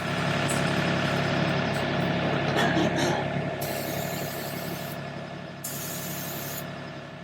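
Diesel engine running steadily, slowly fading. Two short hisses come about four and six seconds in.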